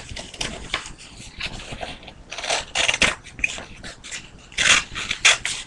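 Scissors cutting construction paper: a run of irregular crisp snips mixed with paper rustling as the sheet is handled.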